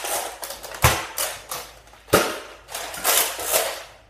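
Nerf Slingfire's plastic lever action being flicked to cock the blaster, giving two sharp clacks, one about a second in and one just after two seconds, between bursts of plastic rattling and swishing as the blaster is swung.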